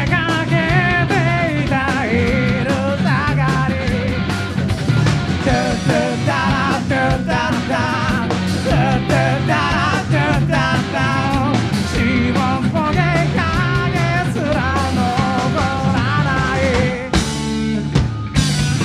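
Live rock band: a male lead vocal sung over distorted electric guitars, bass and drums. The singing drops out briefly near the end.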